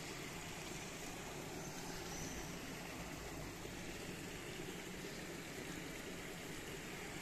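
Small stream running steadily over stones, an even, unbroken rush of water.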